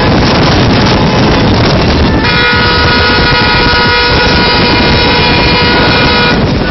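A car horn held down in one steady, unbroken blast for about four seconds, starting about two seconds in and cutting off suddenly. Before it there is loud, dense noise.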